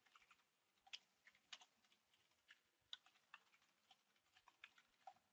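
Faint typing on a computer keyboard: quick, irregular keystroke clicks, a few each second.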